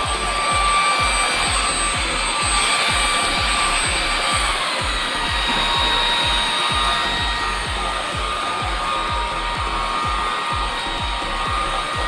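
Forbes Select Kordfree NXT cordless stick vacuum cleaner running on a tiled floor, picking up spilled flour: a steady rush of air over a high motor whine. The whine drops slightly in pitch about four and a half seconds in.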